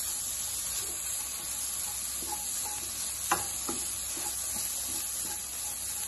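Onions, chicken and green capsicum frying in butter in a nonstick pan, a steady sizzle on lowered heat, stirred with a wooden spatula that scrapes and knocks against the pan, with a sharp knock about three seconds in.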